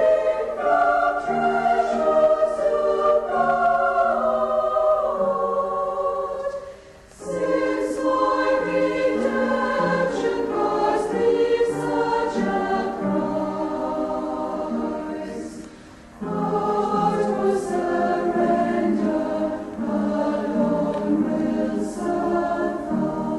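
A choir singing a slow hymn in sustained phrases, with short breaths between phrases about seven and sixteen seconds in.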